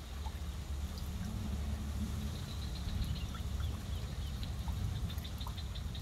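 Outdoor ambience of small creatures calling: scattered short bird chirps and a rapid, evenly pulsed high trill that comes and goes, over a steady low rumble.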